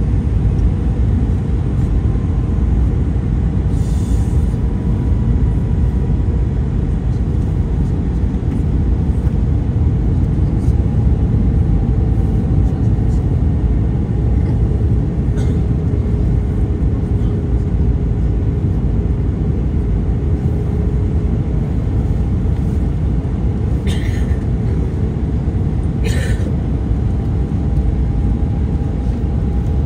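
Airbus A321 cabin noise during descent: a steady, loud rush of air and engine with a faint engine hum whose pitch drifts slowly. A few short, sharp hissy sounds stand out about four seconds in and twice near the end.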